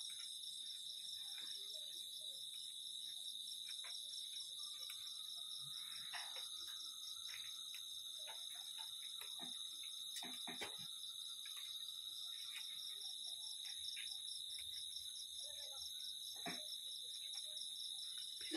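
Night-time insect chorus, mainly crickets: several steady, pulsing high-pitched trills layered at different pitches, with faint scattered clicks underneath.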